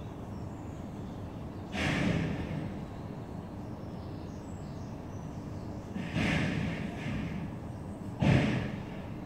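Office furniture factory noise: a steady low rumble broken by three sudden bursts of noise, about two seconds in, around six seconds and near the end, the last one the loudest.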